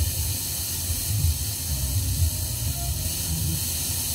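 Steady FM static hiss from the Sony CXA1619 FM receiver tuned between stations, played through the amplifier's speakers, with an uneven low rumble underneath.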